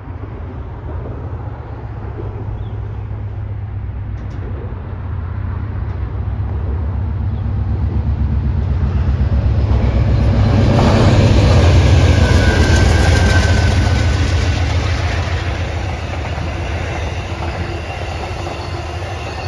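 Amtrak passenger train passing at speed: the diesel locomotive's engine and the wheels on the rails build from a low rumble to their loudest about twelve seconds in, then the passenger cars roll by and the sound eases off.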